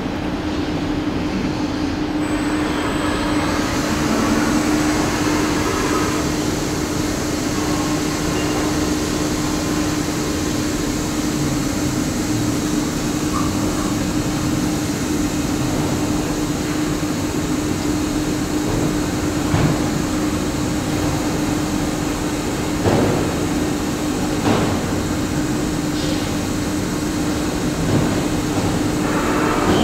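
CNC lathe running with a steady hum and a constant tone, its spindle turning the chuck; a higher hiss joins about two seconds in. A few short knocks come in the second half.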